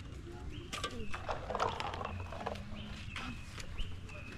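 Short, high calls from a bird or small animal, repeated several times about every half second, mixed with scattered clicks and knocks.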